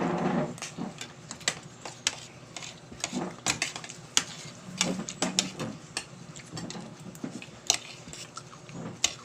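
Eating with cutlery: a spoon or fork clinking and scraping against a plate in irregular sharp taps, several in quick succession, with soft mouth sounds of eating between them.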